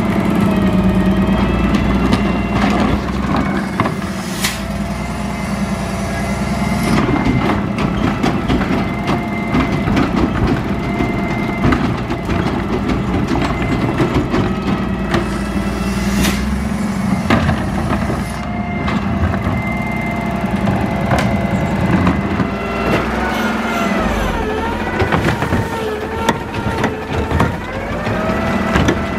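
Labrie Minimax side-loader garbage truck engine running steadily, with scattered metal clanks. Near the end the pitch rises and falls several times as the hydraulic arm lifts and tips the organics cart into the hopper.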